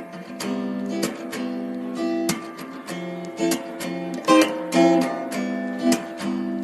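Background music: acoustic guitar strumming and picking a steady tune.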